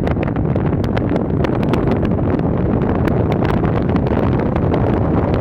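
Steady wind rushing over the microphone from a moving car, with road noise underneath.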